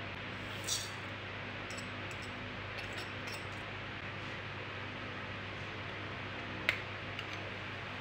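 Metal fork scraping spices off a plate into a stainless steel mixing bowl: a short scrape about a second in, a few light ticks, and a sharp clink near the end, over a steady low hum.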